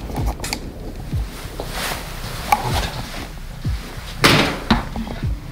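A few short knocks and rustles, the loudest a little after four seconds in.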